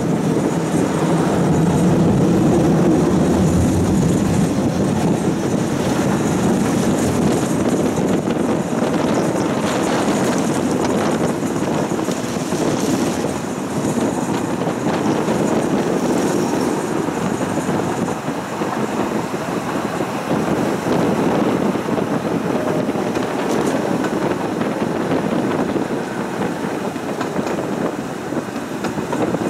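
Tram running along its track, heard from inside the car: a steady noise of wheels on rails, a little quieter in the second half.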